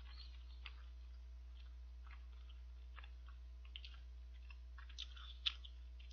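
A person chewing boiled dumplings with the mouth closed: soft, scattered wet clicks and smacks, with a sharper click about five and a half seconds in, over a steady low hum.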